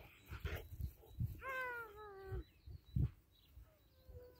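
Alabay (Central Asian Shepherd) puppy whining: one drawn-out, slightly falling whine of about a second, then a fainter one near the end. A few low thumps on the microphone, the loudest about three seconds in.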